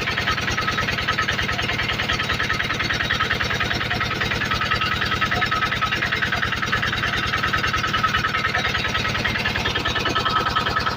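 Generator engine running steadily at a constant speed, with an even, rapid pulse to its sound.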